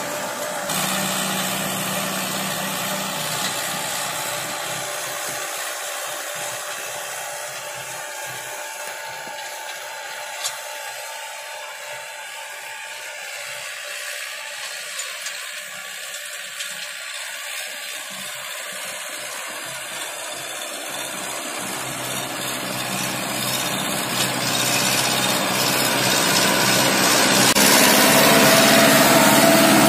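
TAFE 5900 DI tractor's diesel engine running under load, pulling an 18-disc harrow through dry soil in first high gear at about 2100 rpm. It fades as the tractor works away and grows steadily louder over the last several seconds as it comes back close.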